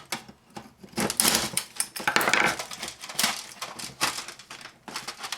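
Parts of a laminator clicking and clattering in irregular bursts as it is taken apart by hand.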